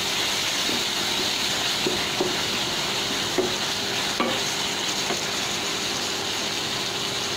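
Sliced onions and ginger-garlic paste sizzling in hot oil in a metal kadai while a wooden spatula stirs them. The spatula knocks and scrapes against the pan every second or so.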